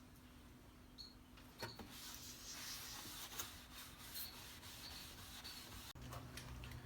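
Faint, steady rubbing on wood, typical of working over a finished wooden surface by hand.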